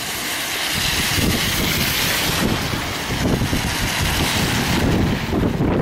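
Wind buffeting the microphone, starting about a second in, over a steady hiss of car traffic on a rain-soaked road.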